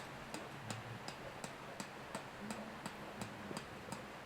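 Even, regular ticking, close to three ticks a second, over a faint low hum.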